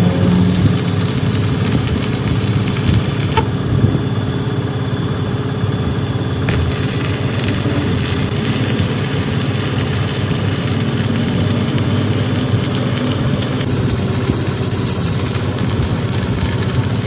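Steady, loud running of an engine or motor, with a dense low rumble and no pauses.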